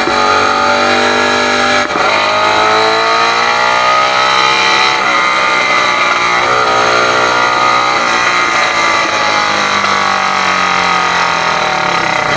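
Motorcycle engine pulling through the gears: the pitch drops at a gear change about two seconds in, climbs, climbs again, then falls slowly away near the end as the bike eases off.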